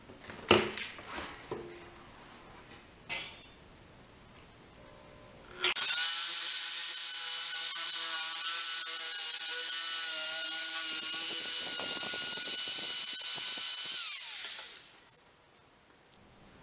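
Harbor Freight 14-gauge swivel-head electric sheet metal shear cutting 14-gauge stainless steel sheet: a steady, loud motor whine for about nine seconds, then the motor winding down with falling pitch. A few sharp knocks come first, about a second and three seconds in.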